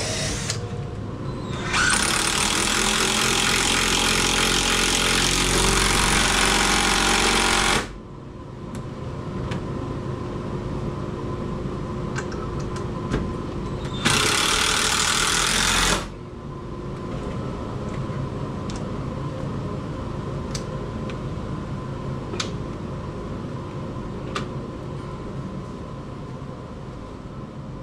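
Cordless drill running into timber, a long run of about six seconds near the start and a shorter two-second run about halfway through, with light clicks and knocks between.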